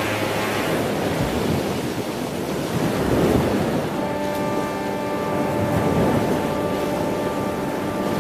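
Sea wash and wind noise, a steady rushing with no clear breaks; about halfway through a low, steady held tone with several overtones joins in and sustains over the wash.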